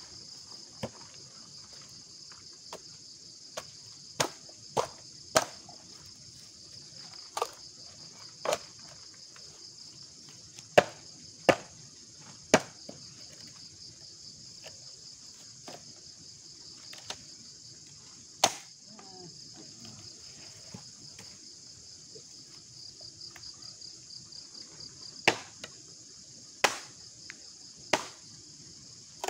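A steady high chorus of crickets chirring, with sharp knocks and taps at irregular intervals standing out as the loudest sounds.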